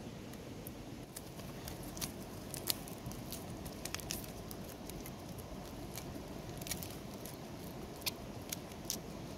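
Feathers being pulled by hand from a wet chicken carcass: irregular small snaps, crackles and squishes, a few a second. A steady rush of river water runs underneath.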